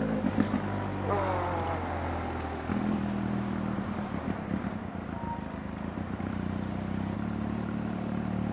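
Motorcycle engine running as it is ridden through town traffic. Its pitch steps up and down a few times with speed or gear changes, and a brief falling tone comes about a second in.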